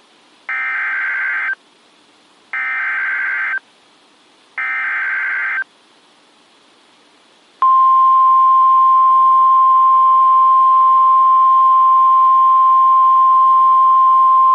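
Emergency Alert System SAME header: three one-second bursts of warbling digital data tones, each about a second apart. About seven and a half seconds in, the steady, loud NOAA Weather Radio 1050 Hz warning alarm tone starts and holds. Together they announce a new warning broadcast over weather radio.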